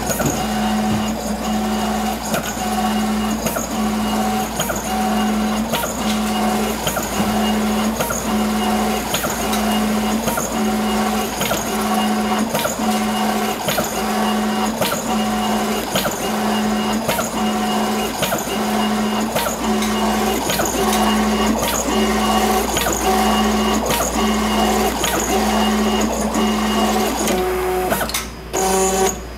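FastJet II inkjet pattern plotter printing: its motor whine comes in short, evenly repeated passes as the HP 45 cartridge carriage moves across the paper, with regular clicks. The sound changes and drops away near the end.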